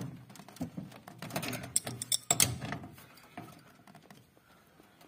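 A wrench clicking and scraping on a flare nut as a 3/8-inch copper refrigerant line is tightened onto an air conditioner's indoor unit. A sharp click at the start, then scattered knocks and clatter for about three seconds, after which it goes quieter.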